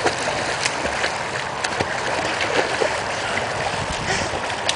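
Water splashing and churning as swimmers kick and stroke through a pool, with sharp slaps of hands and feet on the surface now and then.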